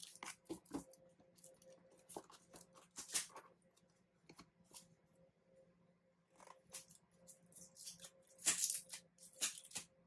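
Cardboard keyboard box being handled as its tight inner tray is worked out of the sleeve: scattered taps, scrapes and short rustles of cardboard sliding on cardboard. The louder scrapes come about three seconds in and again around eight to nine seconds.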